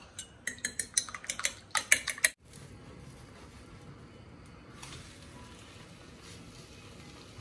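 Metal fork beating an egg on a ceramic plate: rapid clinks, about six a second, for a little over two seconds, stopping abruptly. Then a faint, steady hiss.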